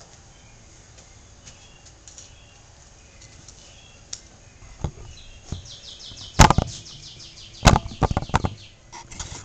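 A hand-held video camera being picked up and handled: a few faint clicks, then two loud knocks and a short rattle of smaller knocks in the second half. A bird trills in rapid chirps in the background.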